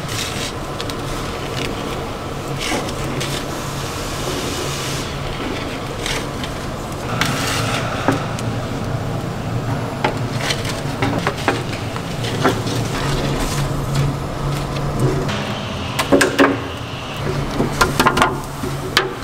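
Long wooden bagel boards knocking and scraping against the metal of a wood-fired bagel oven, over a steady low kitchen hum. The knocks come sparsely at first and bunch together near the end.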